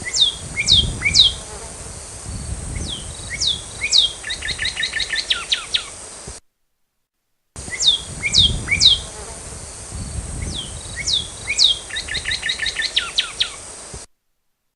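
Northern cardinal chips: sharp, high, downslurred notes, a few spaced apart, then a quick run of about ten in a row. The same sequence is heard twice, with a second of silence between.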